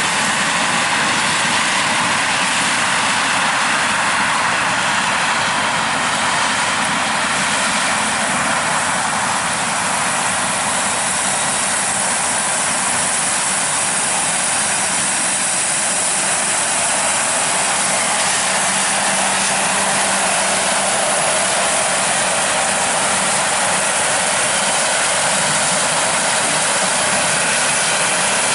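Harvest machinery (combines and track tractors) running steadily during corn harvest: a constant, even rushing noise with no pauses.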